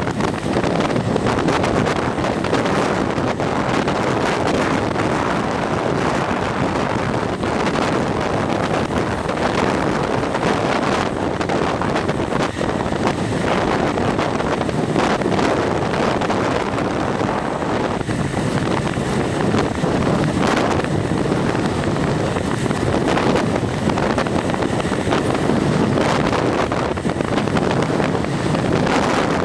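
Steady rush of wind across the microphone of a camera moving along a road, an even noise with no distinct events.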